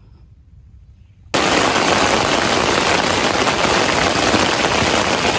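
Faint outdoor quiet, then about a second in the sound cuts abruptly to loud, dense rain falling on a tent, heard from inside the tent.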